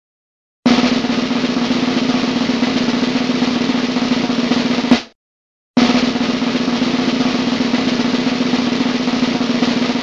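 Snare drum roll sound effect, played twice: each roll runs about four seconds and ends in one sharp hit, with a short gap between the two.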